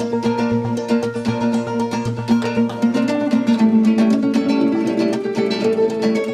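Guitar played live: a fast run of plucked notes over ringing lower notes.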